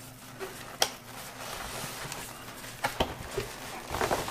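Cardboard box and foam packaging being handled: the box's end flap is opened and a foam insert slid out, with rustling and scraping and a sharp click about a second in and another about three seconds in.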